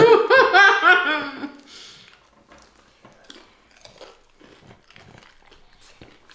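A short burst of laughter, then close-up chewing and biting on fried chicken wings: soft, scattered crunches and mouth clicks.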